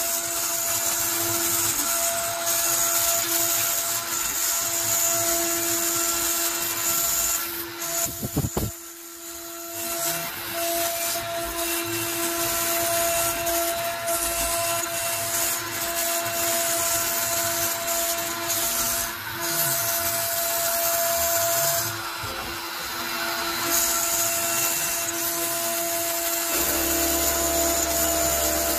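Onefinity CNC router's spindle running at about 18,000 rpm, its single-flute spiral upcut bit milling 3/8-inch cast acrylic: a steady whine over the hiss of the cut. The sound drops briefly about eight seconds in, then resumes.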